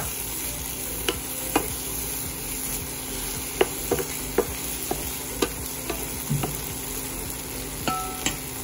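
Onion, tomato and chilli base sizzling in a nonstick frying pan as a wooden spatula stirs it, with irregular clicks and taps of the spatula against the pan.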